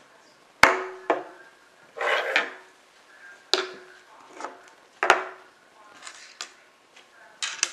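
Parts of a Henry Big Boy .44 Magnum lever-action rifle being handled on a wooden table: a series of sharp metal knocks and clinks, some with a short ring, and a brief sliding scrape about two seconds in.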